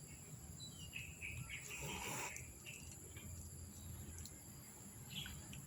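Outdoor ambience: a steady high-pitched insect drone, with a few short chirps about a second in and a brief rustle-like burst just after, over a low background rumble.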